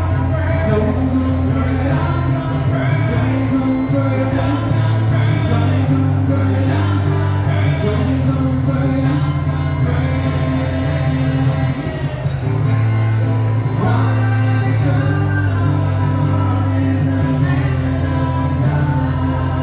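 Live acoustic duo performing a song: sung vocals over acoustic guitar, running without a break.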